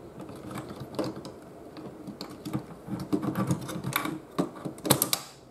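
Plastic parts of a CD-ROM drive frame being handled: irregular small plastic clicks and taps as fingers work at a plastic catch to free the rack gear, with a quick cluster of sharper clicks near the end.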